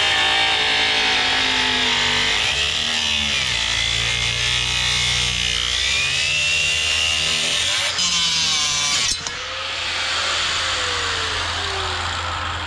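Angle grinder cutting down a wooden boat transom board, the motor's pitch wavering as it bites into the wood. About nine seconds in it is lifted off and released, and the disc winds down with a falling whine.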